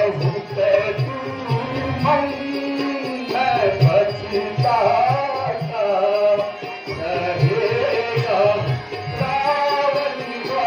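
A voice singing a melodic verse of sung stage drama, with tabla drumming keeping a steady beat and held accompanying tones underneath.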